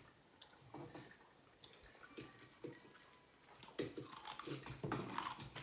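Close-up eating sounds from a seafood boil: chewing and wet squishing with small clicks of shell and utensils, sparse at first and busier and louder in the second half.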